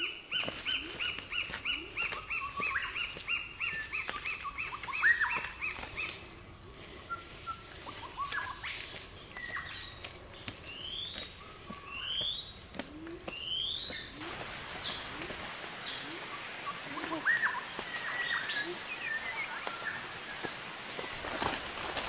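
Forest birds calling: a fast run of about twenty high notes slowly falling in pitch over the first six seconds, then scattered whistled notes, including three quick rising ones after about ten seconds.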